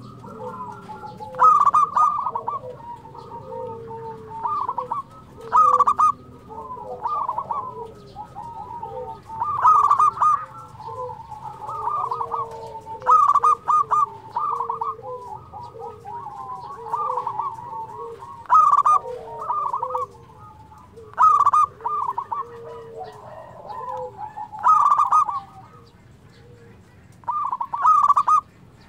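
Zebra dove (perkutut) cooing in lively, repeated staccato phrases. A loud phrase comes every one to three seconds, with softer cooing notes in between.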